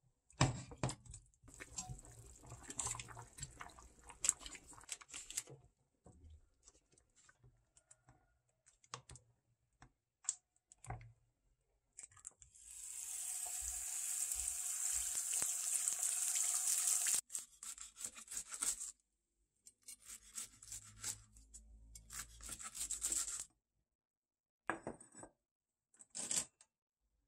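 A wooden spoon stirs chopped vegetables in water in a saucepan, with light scraping and knocking. About halfway through, an egg fries in a pan with a steady high sizzle that builds for several seconds and then cuts off suddenly. Short bursts of kitchen handling noise follow.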